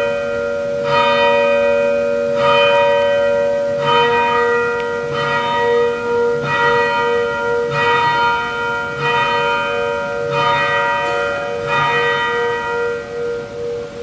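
A church bell tolling slowly, about one stroke every second and a quarter, each stroke ringing on into the next. Near the end the strokes stop and the bell's hum rings on.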